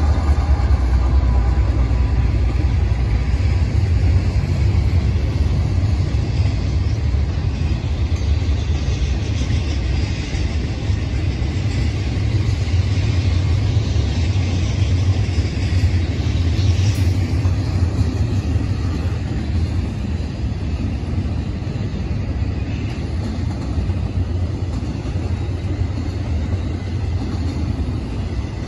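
Norfolk Southern intermodal freight train passing: the diesel locomotives' tones fade in the first few seconds, then double-stack container cars roll by with a steady, deep sound of wheels on rail.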